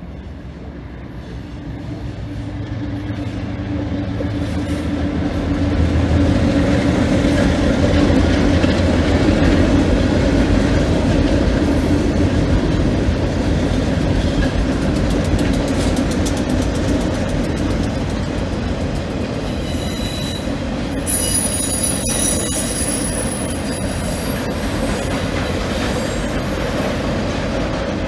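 Cincinnati Eastern Railroad freight train passing at speed: the diesel locomotive's engine grows louder over the first six seconds, then the cars' wheels clatter steadily over the rail joints. A short high-pitched wheel squeal comes a little past twenty seconds in.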